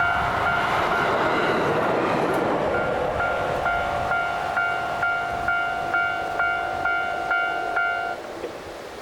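Level crossing's electronic warning bell ringing about twice a second while a train runs over the crossing, the rail noise strongest in the first few seconds. The bell cuts off about eight seconds in.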